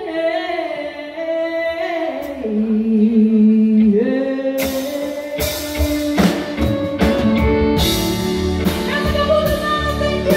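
A woman singing a slow country ballad live through a PA, holding long notes over light backing; about four and a half seconds in, the full band joins in with drums and cymbals.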